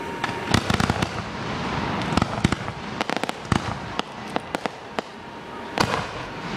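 Aerial fireworks bursting: a rapid run of sharp bangs and crackles in several clusters, the densest about half a second to a second in.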